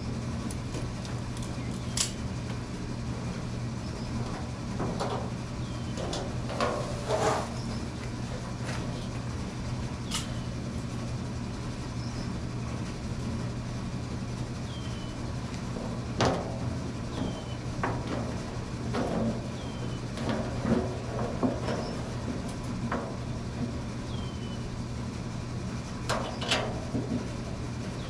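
Scattered clicks, taps and knocks of metal parts and small bolts being handled and fitted while a solar cooker is assembled by hand, over a steady low hum. A few short high falling chirps come and go.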